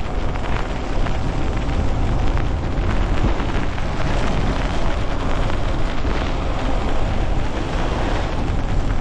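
Stiff, gusting wind buffeting the microphone, loud and steady, on an electric bike riding through rain over a wet road.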